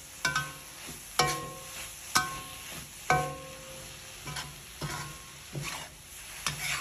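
A utensil stirring and scraping sweet mung bean filling around a metal wok, knocking the pan about once a second so that it briefly rings, over a faint steady sizzle.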